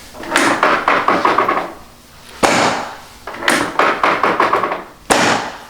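Chiropractic adjustment of the back with the patient face down: a rapid run of clicks and pops, then a single sharp knock, and the same again.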